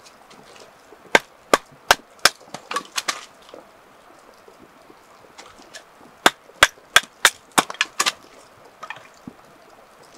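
Batoning firewood: a knife driven through a piece of wood by sharp strikes of a wooden baton on its spine, in two runs of about half a dozen blows, roughly three a second.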